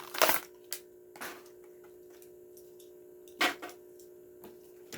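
Plastic and cardboard packaging of a die-cast toy car being torn open: a few sharp cracks, the loudest in the first half second and another about three and a half seconds in.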